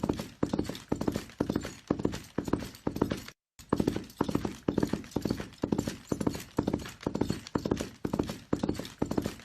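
Horse galloping: hooves strike in quick clustered runs, one cluster per stride, a little under two strides a second in an even rhythm. The sound cuts out completely for a split second about three and a half seconds in.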